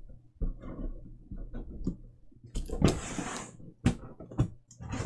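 Cardboard laptop box being handled: strapping tape pulled off by hand with a rasping rip about three seconds in, amid scattered knocks and taps as the box is turned over on a wooden table.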